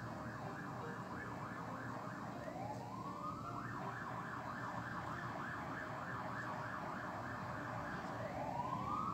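Emergency vehicle siren sounding in a fast warbling yelp, about eight cycles a second, that twice gives way to a slow rising wail, about two and a half seconds in and again near the end.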